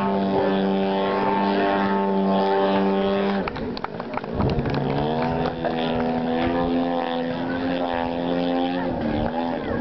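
Piston engine of a small aerobatic propeller plane in flight. It holds a steady high note, then about three and a half seconds in it drops sharply and swoops back up. It settles at a lower pitch, with another brief dip near the end as the plane manoeuvres.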